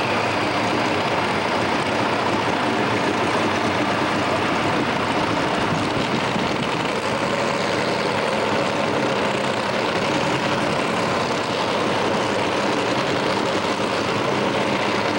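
Super stock pulling tractor's turbocharged diesel engine running steadily at idle, with no revving.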